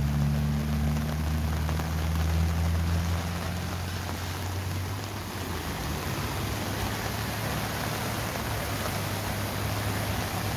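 Floodwater rushing through a swollen creek channel, a steady noisy roar. In the first few seconds a car's engine hum on the wet road sits under it and fades out.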